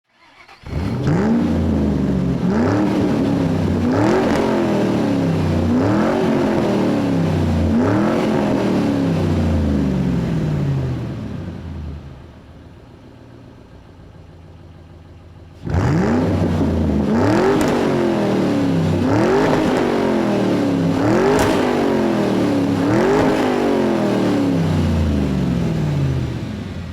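A car engine revving again and again. Each rev rises sharply in pitch and then falls away, about one every second and a half. The revs come in two runs with a lull of a few seconds in the middle.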